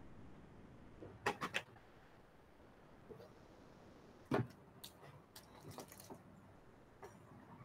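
Faint scattered clicks and knocks over a low steady hiss: a quick run of three about a second in, a single louder knock about four seconds in, a few lighter clicks just after, and one more near the end.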